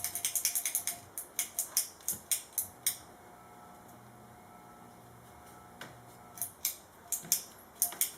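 Hand cutters snipping wires out of an old ceiling fan motor: a quick run of sharp snips and clicks, spacing out after about a second, a pause of nearly three seconds, then several more snips near the end.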